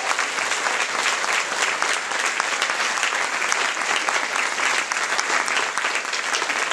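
Audience and choir applauding: many hands clapping steadily.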